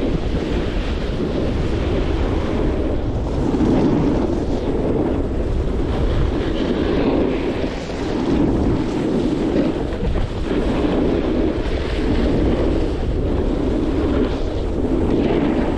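Wind rushing over a helmet or chest-mounted action camera's microphone during a fast downhill run, mixed with the hiss and scrape of edges carving groomed packed snow. The noise swells and eases every second or two with the turns.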